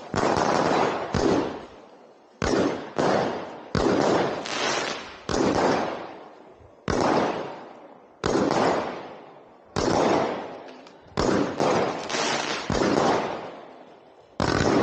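Fireworks going off close by: a string of about a dozen loud bangs, roughly one every second or so, each fading away over about a second before the next.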